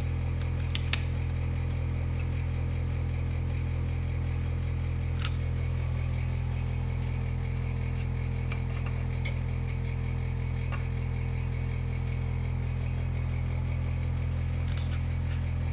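A steady low hum, with a few light clicks and taps from hands working on parts at the top of the snowmobile's engine.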